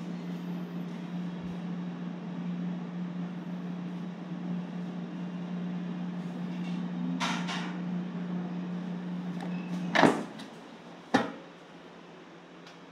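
Air fryer running with a steady fan hum and rushing air. About ten seconds in, a loud clunk as the basket drawer is pulled open and the fan stops, then a second sharp click a second later.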